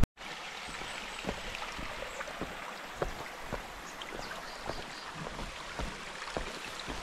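Steady rush of running water, like a mountain stream beside the trail, with soft footsteps on the path about twice a second.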